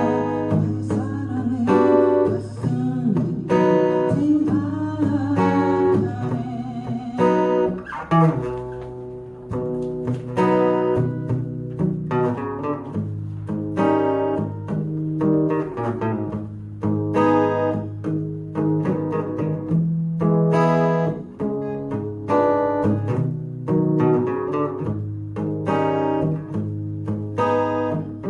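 Guitar played in a slow rock strumming pattern, palm-muted chords with bass runs, its chord strokes falling at an even beat.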